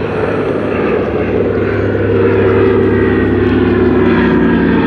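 Two radial piston engines and propellers of a Douglas DC-3 Dakota on a slow, low flypast, a steady drone that grows louder as the aircraft comes closer.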